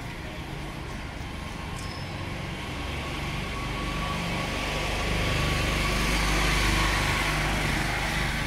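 Engine of a motor vehicle passing close in street traffic, growing louder to its loudest about five to seven seconds in and then easing, over a steady hiss of traffic.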